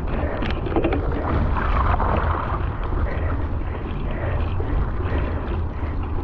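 Cyclocross bike riding through mud, with a steady rumble of wind on the bike-mounted camera's microphone over the noise of the tyres in the mud. A few sharp clicks about half a second in.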